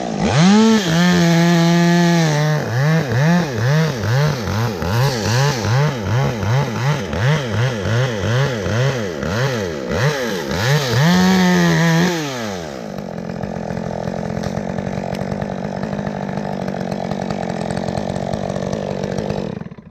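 Two-stroke chainsaw revving hard, its pitch swelling and dropping about twice a second as it works, then rising once more before dropping to a steady idle about 13 seconds in.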